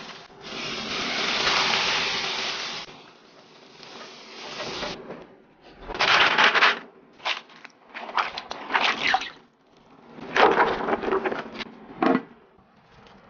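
Hot cooking oil sizzling as fried spices are lifted out with a skimmer, fading after about three seconds. Then several short bursts of handling noises and clicks from kitchen work.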